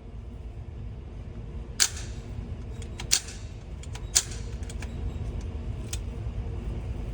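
Three sharp gunshot cracks, a little over a second apart, with a few fainter clicks, over a steady low rumble.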